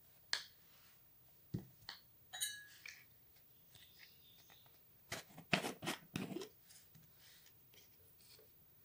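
Jars and a stirring stick being handled: scattered taps and a short ringing clink, then a quick run of clicks and scrapes about five to six and a half seconds in as a plastic screw lid is twisted off a jar of turmeric.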